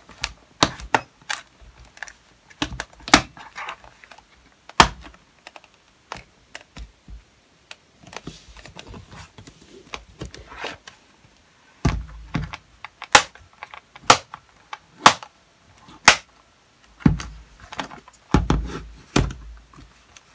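Irregular sharp plastic clicks as the HP Mini 110 netbook's bottom cover is pressed around its edges and its clips snap into place, with a few dull thumps as the netbook is handled.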